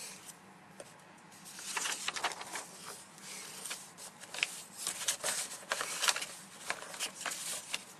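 Sheets of paper rustling and sliding as the page is changed, a run of quick crinkles and small taps starting about a second and a half in.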